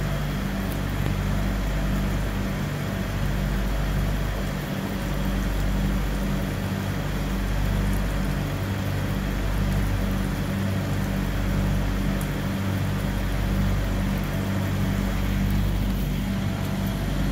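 Semi truck's diesel engine idling steadily: a low, even hum that swells and dips about every two seconds.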